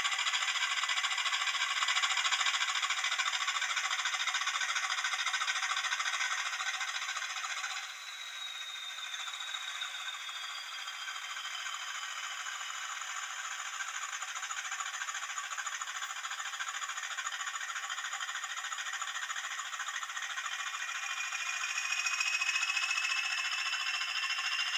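Hornby TTS sound decoder in an OO-gauge Class 20 model locomotive playing its diesel engine sound through the model's small speaker: thin and tinny with no bass as the model runs. About eight seconds in the sound drops back with a whine falling away, and near the end a whine rises again as the engine sound powers up.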